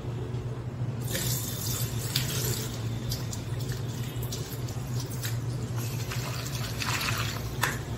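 Kitchen tap running into a glass bowl of sago pearls in a steel sink, starting about a second in, with water splashing as the pearls are stirred and rinsed by hand. A low steady hum lies underneath throughout.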